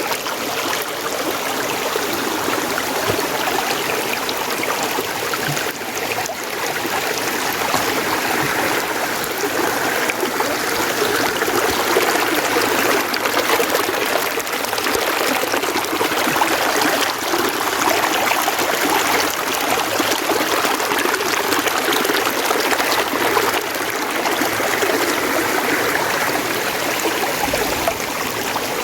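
Mountain stream flowing steadily over rocks, an even rushing and trickling of water.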